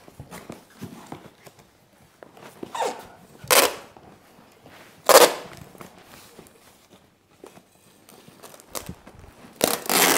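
Packing tape pulled off the roll in four short, loud rips spread a second or more apart, with faint rustling of the parcel between pulls.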